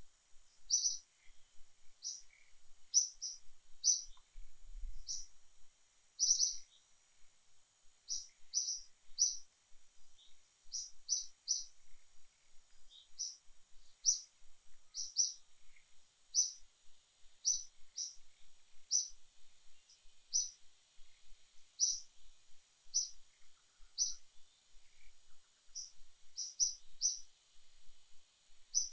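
A small bird chirping over and over: short, sharp, high notes at an uneven pace of about one or two a second, often in quick pairs, over a faint steady high hiss of forest insects.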